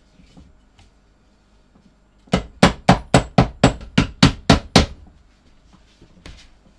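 Cobbler's hammer striking a leather sole on an iron last: about a dozen quick, sharp blows at roughly four a second, then one lighter blow near the end. The sole is being hammered down onto freshly reactivated glue to set the bond.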